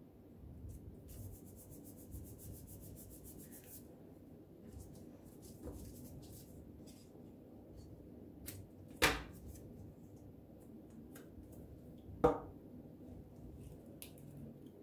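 Paper pieces being handled and pressed down on a plastic table cover: soft rustling and rubbing, with a rapid ticking for a few seconds about a second in and two sharp knocks about nine and twelve seconds in.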